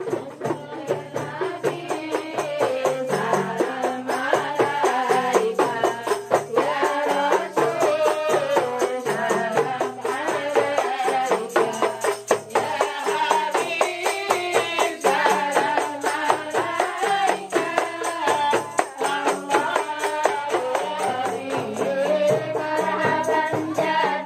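Qasidah music: a woman singing into a microphone over rebana frame drums and tambourine jingles, which keep up a quick, steady beat under a low bass line.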